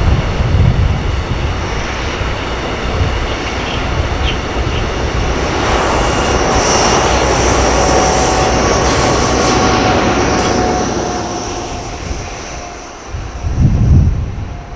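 A heavily loaded freight train of sand and gravel wagons rolling past, its wheels squealing thinly on the rails, swelling in the middle and fading away. Near the end, wind buffets the microphone.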